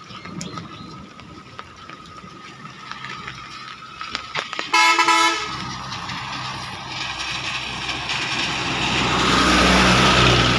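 A vehicle horn honks once, briefly, about halfway through, then a vehicle engine is heard approaching, its steady hum growing louder toward the end.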